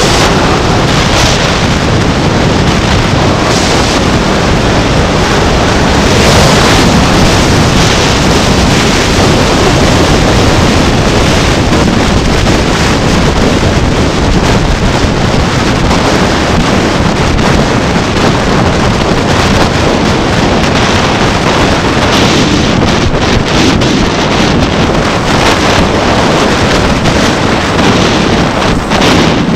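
Loud, steady wind noise buffeting the microphone of a camera riding along a road, mixed with low road rumble.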